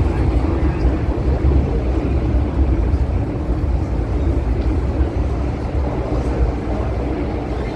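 MTR M-Train electric multiple unit running through a tunnel, heard inside the passenger car: a steady, heavy low rumble of wheels and running gear on the track, easing slightly near the end.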